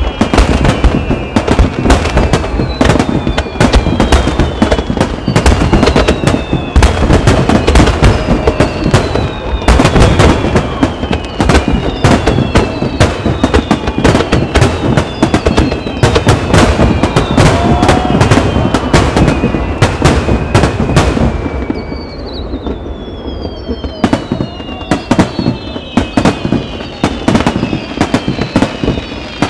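Fireworks display: aerial shells bursting in rapid succession, dense bangs and crackling, with many overlapping whistles that fall in pitch. About two-thirds of the way through the bangs thin out briefly, then a fresh set of whistles and bursts begins.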